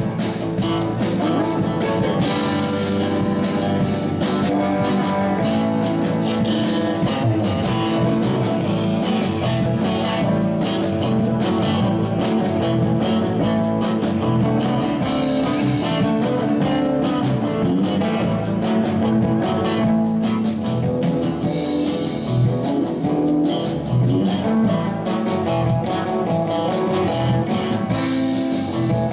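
A live rock band playing: an amplified Les Paul-style electric guitar over bass guitar and a drum kit with cymbals.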